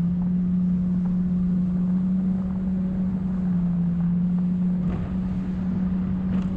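Jet boat engine running under way at a steady speed, a constant drone, with wind noise on the microphone.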